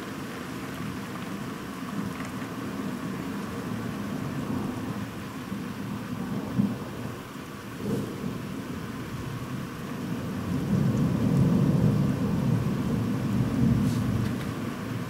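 Steady rain during a thunderstorm, with a low rumble of thunder that builds from about two-thirds of the way in and is loudest near the end.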